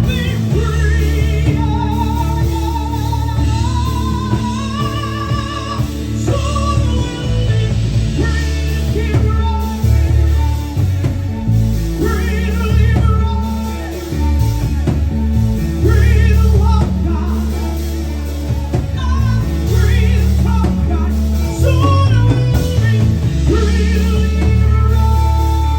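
Live band playing a soft-rock ballad: drums, bass and guitar under a wavering lead melody.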